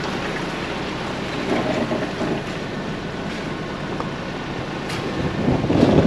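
Ford Bronco driving slowly along a dirt off-road trail: engine and tyres running under wind noise on the vehicle-mounted microphone, with a few faint knocks, getting louder near the end.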